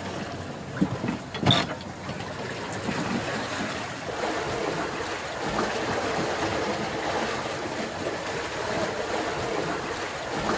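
Sailboat sheet winch being worked, its pawls clicking, with a sharp clack about one and a half seconds in. Then a steady rush of water and wind along the hull as the headsails fill.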